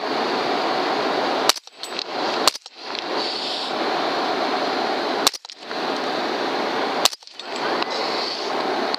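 Four rifle shots from a .300 HAM'R rifle, the first two about a second apart and the next two following at intervals of about three and two seconds. Each crack is followed by a brief dip in the sound before a steady hiss returns.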